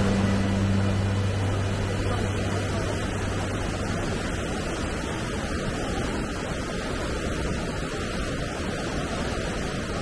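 Steady rushing of a waterfall and its rocky stream, an even noise of falling water. The last held notes of background music fade out in the first few seconds.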